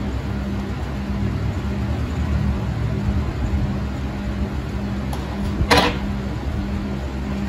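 Steady low mechanical hum, with a faint low tone pulsing on and off about once a second. A brief hissing burst about five and a half seconds in.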